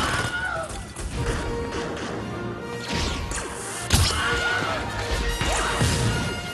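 Film soundtrack excerpts: a short man's scream, the stock Wilhelm scream sound effect, heard twice, over music and crashing action noise, with a sharp loud impact near the middle.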